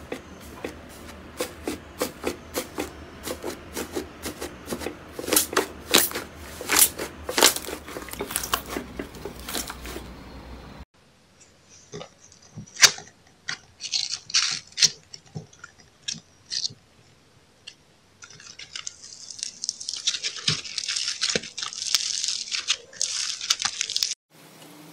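Slime being squeezed and poked by hand, giving a quick run of wet clicks and pops. After a cut about eleven seconds in come sparser snaps, then a dense crackling from crunchy slime that stops abruptly just before the end.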